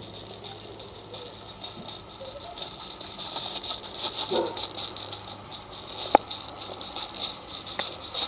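16mm-scale live steam garden-railway locomotive running under load with a freight train, its steam exhaust hissing in quick, even beats and the wagons rattling on the track, growing louder as it draws near. A sharp click about six seconds in.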